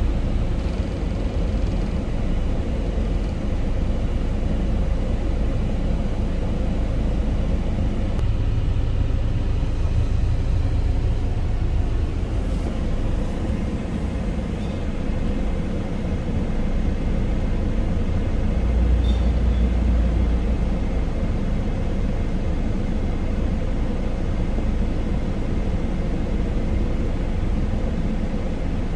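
Isuzu Elf truck's engine running steadily, a low rumble with a constant mechanical noise. It steps up in loudness right at the start.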